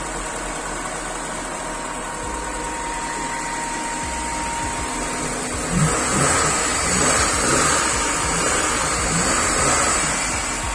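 Freshly overhauled four-cylinder SOHC engine of a 1999 Honda Civic idling steadily. From about six seconds in it gets louder and rises and falls unevenly as the throttle is worked. It runs smooth.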